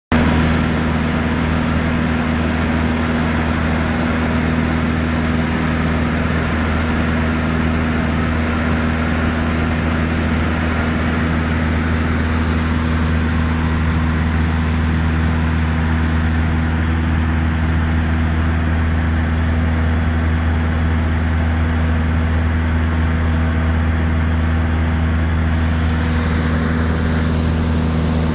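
Cessna 152's four-cylinder Lycoming engine and propeller droning steadily in flight, heard inside the cockpit as a loud, even low hum with a few fixed tones.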